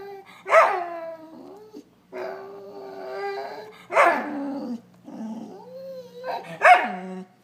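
Border collie whining and crying for attention in a long run of wavering, drawn-out whines. Louder, higher cries break in about half a second in, at about four seconds, and near the end.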